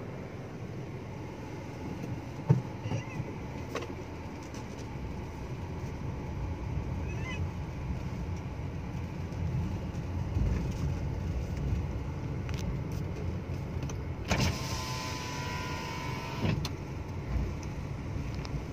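Steady road and engine noise inside a moving car's cabin, with a sharp click a couple of seconds in. About three-quarters through, a car's electric power window motor whines for about two seconds and stops abruptly.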